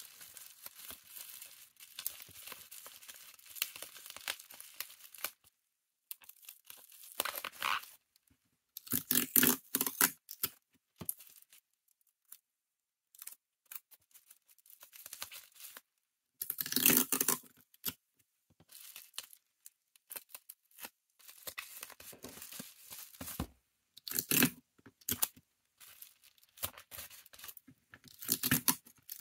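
Plastic bubble wrap crinkling and rustling as hands fold it around a package. It is broken by four louder bursts of packing tape being pulled off a desk dispenser and torn.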